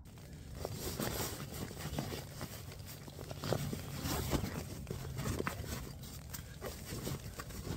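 Fabric rustling and crinkling as gear is stuffed and pressed into a stuff sack, in many short irregular scrapes and crackles.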